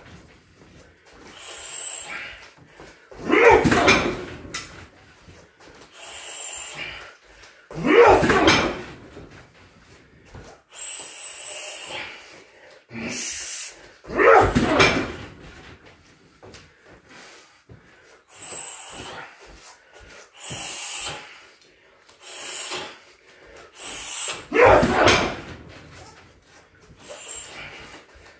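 Bare shin kicks hitting a car tyre mounted on a heavy free-standing boxing stand. There are four hard hits several seconds apart, each a sharp thud that rattles on for about a second.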